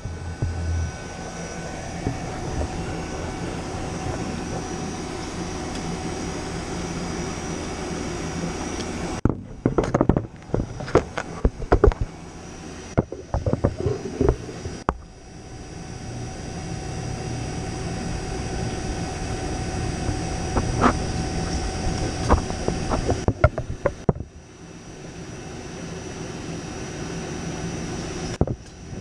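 Steady mechanical drone of a refrigeration vacuum pump pulling a vacuum on a scroll compressor while it is charged with oil, with machinery running around it. Sharp clicks and knocks of hand work come in the middle, and the sound cuts off abruptly a few times.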